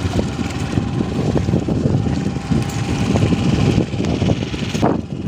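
Fishing boat's engine running steadily under a loud low rumble of wind buffeting the microphone.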